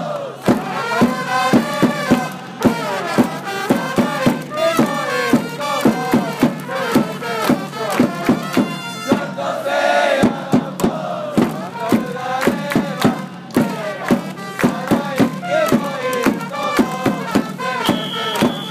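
Baseball cheering-section crowd singing and chanting a cheer song in unison, with a steady beat of sharp hits a few times a second.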